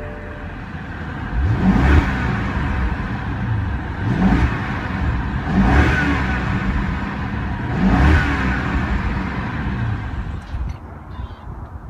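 BMW B6 Alpina Gran Coupe's 4.4-litre twin-turbo V8 revved four times in Park, each rev rising and falling back, then settling to idle near the end. Heard from inside the cabin.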